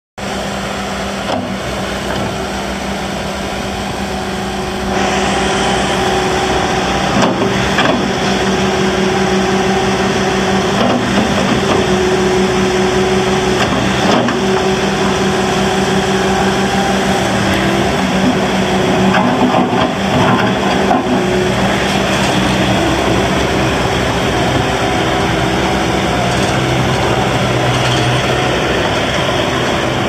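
Bobcat T595 compact track loader's diesel engine running steadily as the machine drives and turns, getting louder about five seconds in, with occasional sharp clanks.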